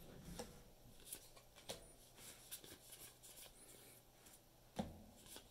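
Faint rustle and soft ticks of Magic: The Gathering cards being slid through by hand, one card moved to the back of the stack after another, with a dull bump near the end.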